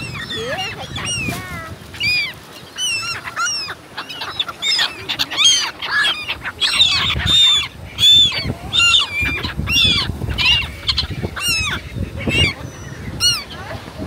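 A flock of black-headed gulls calling, many harsh, arching calls overlapping each other, busiest in the middle stretch.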